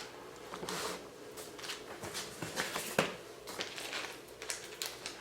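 Small screws and hardware being handled by hand: scattered light clicks and ticks with some rustling.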